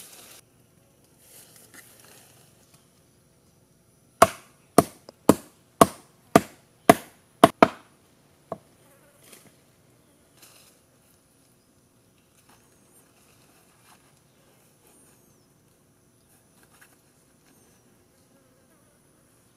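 A run of eight sharp chopping blows, about two a second, the last two close together, then one fainter blow, with insects buzzing faintly and steadily behind.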